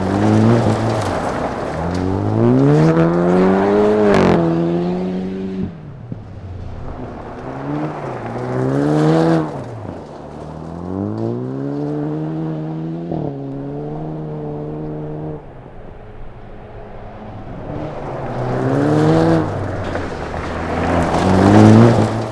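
Jaguar F-TYPE Convertible rally car driven hard on loose gravel: the engine revs up and drops back again and again as it goes through the gears, with gravel hissing and spraying under the tyres. Loudest as the car passes close near the end.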